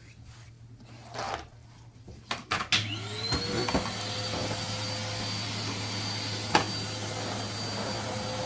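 A few handling clicks, then a Numatic Henry cylinder vacuum cleaner is switched on about three seconds in. Its motor spins up with a rising whine and settles into a steady run. A single sharp click comes later in the run.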